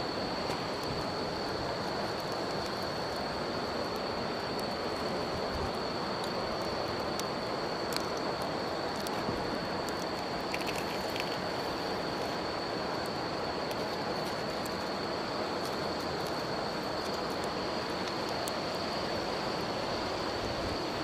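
Steady rush of river water under an unbroken high-pitched insect trill, with scattered small crackles and pops from a wood campfire.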